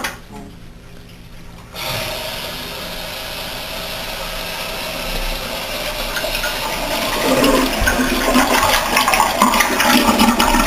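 Toilet flushing: a rush of water starts suddenly about two seconds in and grows louder and more uneven toward the end.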